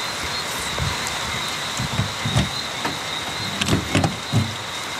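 Night chorus of frogs and insects with a steady high trill, and a string of short, low frog croaks between about one and four and a half seconds in.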